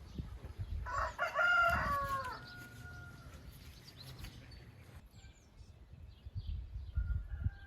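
Rooster crowing once, starting about a second in and ending in a drawn-out note that trails off; a second, fainter crow begins near the end.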